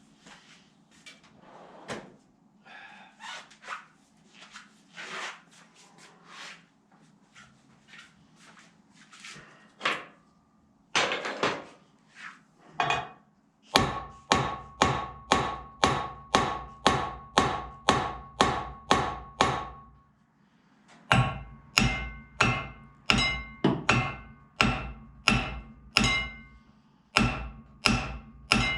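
Hammer blows on a puller under heavy tension on a Jaguar MKII rear axle, trying to shock the part loose: two runs of even strikes at about two a second with a short pause between them, each blow ringing metallically. Before them, lighter knocks and clanks of tools being handled.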